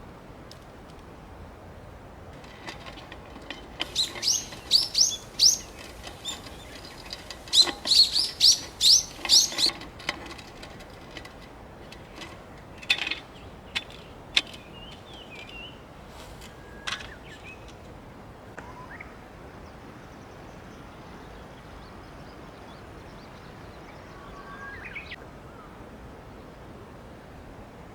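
Wild birds singing, with two bursts of quick, repeated downward-sweeping notes, then scattered short calls, over a steady background hiss.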